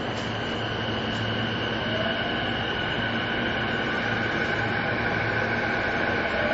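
E233-2000 series electric train heard from inside the car while running through the tunnel: steady running noise with a humming motor whine, and a faint tone rising in pitch from about two seconds in as the running noise slowly grows louder.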